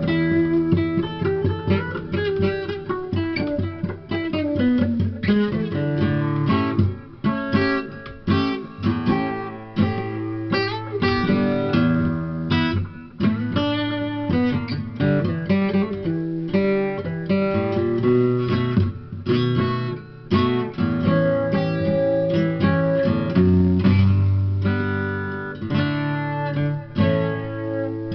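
Acoustic steel-string guitar played solo, plucked and strummed notes and chords ringing with frequent sharp attacks. About three seconds in, a note slides down in pitch.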